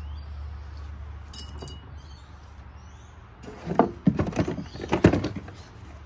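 Small household items clattering and knocking together as they are handled, in a burst of sharp rattles about four to five seconds in, over a low steady hum.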